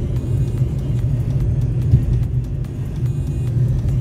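Car cabin noise while driving on a highway: a steady low rumble of engine and tyres on the road, with a brief bump about two seconds in.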